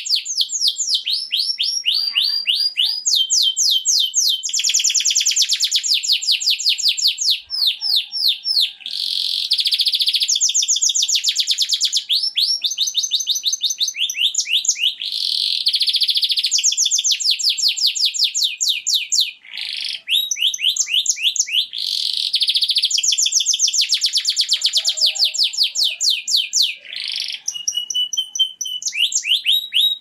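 Yellow domestic canary singing a long, unbroken song of rapid trills. Each phrase is a fast run of the same note repeated, switching to a new run every second or two, with one short break about two-thirds of the way through.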